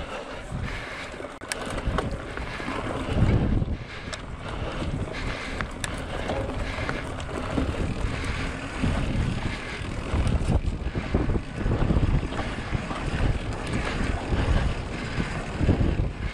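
Wind buffeting the microphone during a bike ride, with a surging low rumble and a few scattered clicks and rattles.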